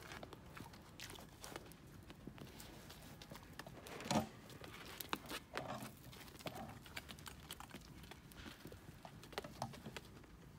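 Hooves of a group of deer clicking and tapping on stone paving as they shuffle and crowd close, with one louder brief sound about four seconds in.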